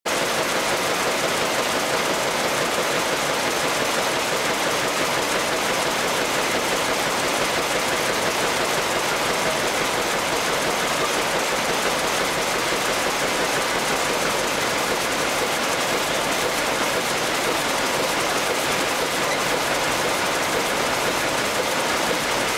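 Jacquard towel loom weaving, a steady, rapid mechanical beat that does not change.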